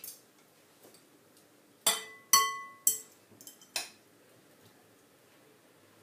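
Metal spoon and fork clinking against a glass salad bowl while serving out the salad: four sharp clinks, some with a short ring, between about two and four seconds in.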